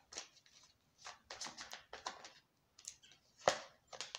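Tarot cards handled and flicked out of a deck by hand: a run of short papery snaps and slaps, the sharpest about three and a half seconds in.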